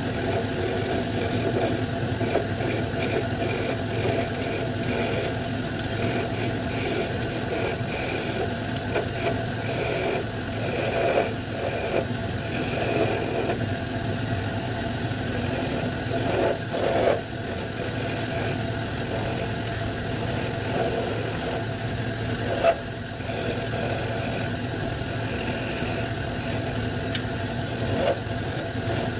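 Wood lathe running with a steady motor hum while a turning tool cuts green wood, an uneven scraping that swells and fades with each pass. A few brief sharper knocks stand out, one around the middle and one past two-thirds of the way through.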